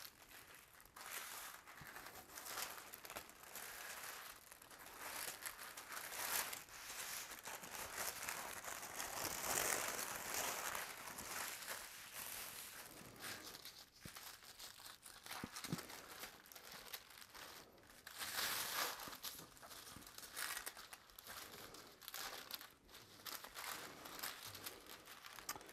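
Heavy, rough sewing-pattern paper rustling and crinkling as hands unfold and smooth the folded pattern pieces. It comes in waves, loudest about ten seconds in.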